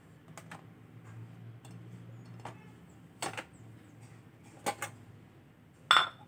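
Washed plates, a plastic lid and a ceramic bowl being set into a plastic dish drying rack: a scattering of light clacks and knocks, some in quick pairs, the loudest near the end as the bowl goes in.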